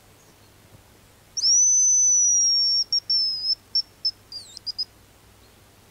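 Hazel grouse decoy whistle (manok) blown close by, imitating the male hazel grouse's song: one long, thin, high whistle, then a run of short whistled notes with a quick dip in pitch near the end.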